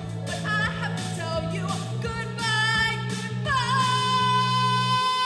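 A woman singing expressively with a wavering pitch over a steady low drone. Near the end she holds one long high note, which stops abruptly together with the accompaniment.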